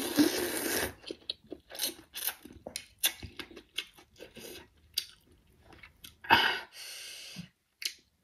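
A person slurping up a mouthful of bún bò Huế rice noodles close to the microphone, then chewing with many short wet smacks and clicks, with a second slurp about six seconds in.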